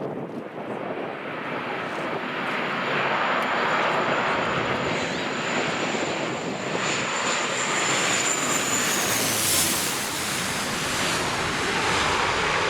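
Jet airliner passing close by: a steady engine roar with a high turbine whine that drops in pitch about nine seconds in as the aircraft goes past.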